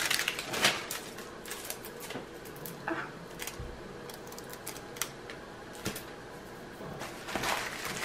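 Scattered small clicks and crinkles of plastic wrap as fingers pick at the taped, sticky plastic around a rolled diamond-painting canvas, with a louder rustle near the end.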